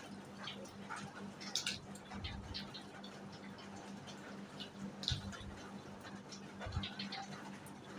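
Light rain falling: a steady patter with scattered louder drops and drips at irregular moments.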